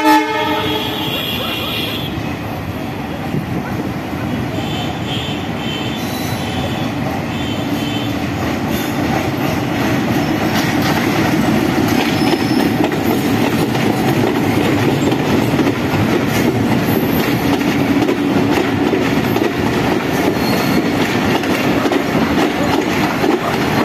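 Passenger train rolling past: a diesel locomotive's engine, then a long line of coaches with wheels clattering over the rail joints and brief high wheel squeals, the rumble growing gradually louder. A horn blast cuts off right at the start.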